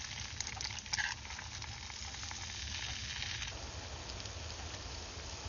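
Eggs frying in hot oil in a cast-iron skillet: a steady sizzle with popping crackles, louder for a moment about a second in, then quieter after about three and a half seconds.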